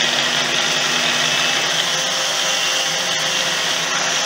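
Electric hand blender running steadily on its chopper-bowl attachment, chopping onion. The bowl is packed with two large onions, so the pieces at the top don't reach the blades.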